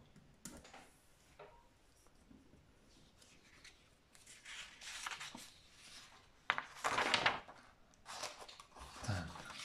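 Sheets of paper rustling and sliding as exam pages are turned over, loudest about two-thirds of the way through. Faint pen scratching on paper near the start.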